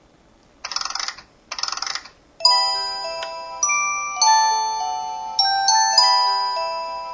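LG-KP8500 mobile phone playing its built-in sounds: two short buzzy bursts, then from about two and a half seconds in a chiming, bell-like ringtone melody of sustained notes.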